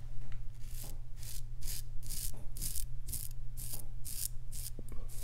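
Parker 63C open-comb safety razor with an Astra Superior Platinum blade scraping through lathered stubble on the neck in short, quick strokes, about three a second.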